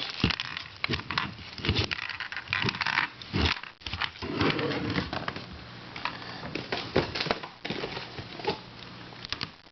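Plastic twisty puzzles being turned and handled, with irregular clicks, knocks and rustles.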